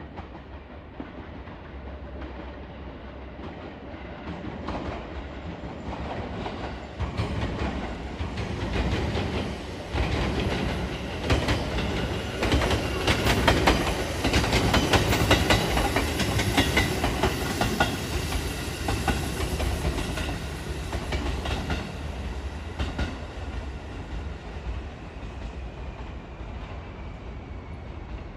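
A JR Shikoku train passing close by, its wheels clattering over rail joints. It grows louder to a peak around the middle, then fades away, with a faint falling whine near the end.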